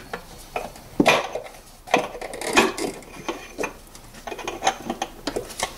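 Irregular hard clicks and knocks from a new cartridge oil filter and its cap being pushed and worked into the oil filter housing of a 2004 Mini Cooper by hand. The clicks come in a quicker run near the end.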